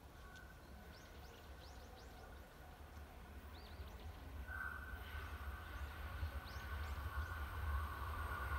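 Rumble of an approaching electric train growing steadily louder, with a steady high tone coming in about halfway. Birds chirp on and off.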